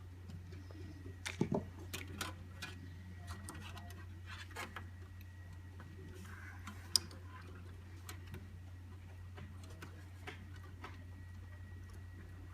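Irregular small clicks and taps of computer parts and connectors being handled during an SSD install, with a sharper click about seven seconds in, over a steady low hum.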